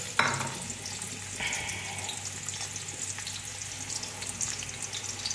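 Sliced onions sizzling in hot oil in a pot, with a sharp click just after the start.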